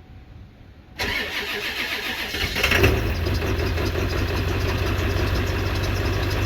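Diesel pickup engine cranking over from about a second in, catching a little under two seconds later and settling into a steady idle. It is a restart after the glow plugs have been given time to heat.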